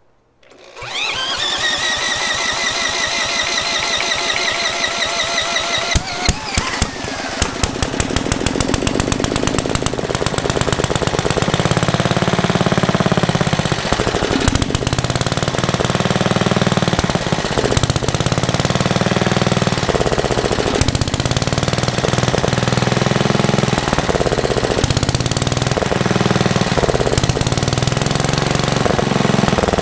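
A cordless drill on the flywheel nut cranks a cold Clinton cast-iron single-cylinder engine with a rising whine for about six seconds, choke on. The engine then catches with a quickening string of pops and runs on, its speed rising and falling every second or two, on a carburetor not yet tuned.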